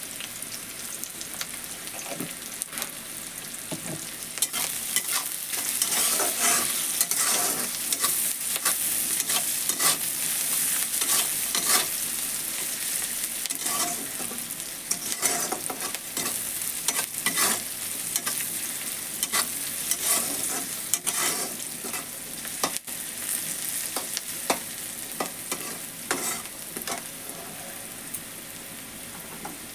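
Chopped onion frying in oil in a kadai with a steady sizzle. A spatula stirs it, scraping and knocking against the pan in frequent short strokes, busiest through the middle.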